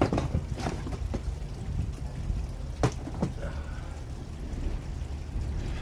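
A few short knocks and scrapes of a plywood door being taken off a brick pizza oven's opening, the loudest about three seconds in, over a low steady rumble.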